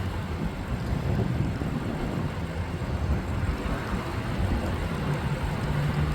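Steady low rumble of vehicle traffic, with wind buffeting the microphone.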